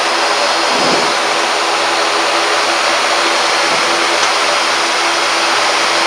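ATR 72-600's Pratt & Whitney PW127 turboprop engines and propellers running at low taxi power, heard inside the cockpit: a steady rushing noise under a steady low propeller hum.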